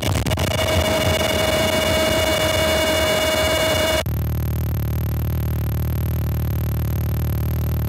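Loud electronic static-like noise with several steady tones held under it. About four seconds in it cuts off abruptly to a low steady hum with a thin high whine above it.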